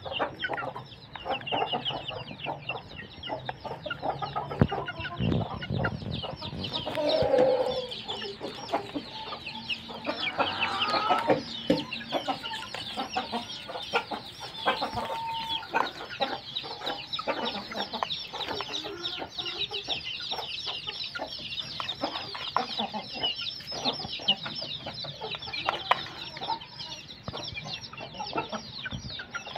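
Young chickens feeding together from a plastic tray: a constant stream of short, high cheeping calls and clucks over many quick pecking taps.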